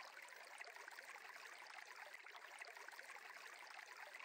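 Near silence: a faint, steady hiss of running water from a stream ambience bed.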